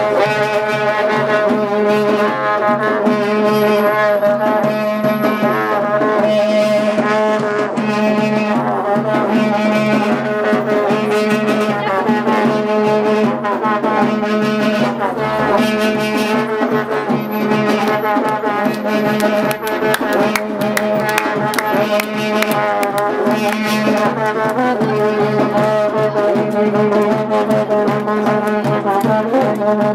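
Uzbek karnay, long straight brass horns, sounding a loud, steady drone, with a wavering melody above it and regular drum beats: traditional wedding music.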